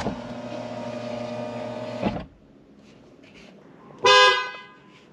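A power window motor runs for about two seconds as the glass lowers, stopping with a clunk. About four seconds in, the aftermarket Hella horn fitted to a Toyota RAV4 Prime sounds one short, loud blast, heard from inside the cabin with the windows down.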